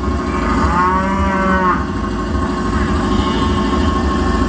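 A single drawn-out low moan, lasting about a second, that swells and falls in pitch, over a steady low mechanical drone.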